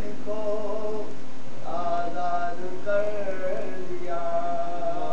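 A man's voice chanting a soz, a mournful Urdu elegy sung for Muharram, unaccompanied. It is sung in four long held phrases with short pauses between them.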